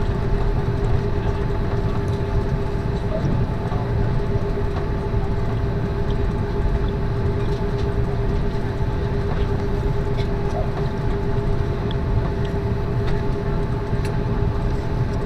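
Steady cabin noise inside an Airbus A330-200 on the ground with its engines at idle: a low rumble under a constant hum with a few steady higher tones, neither rising nor falling.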